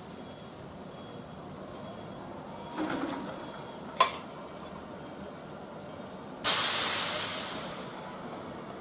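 A stationary electric train's compressed-air system vents in a loud hiss lasting about a second and a half, starting abruptly and tailing off. About two seconds before it comes a single sharp metallic click.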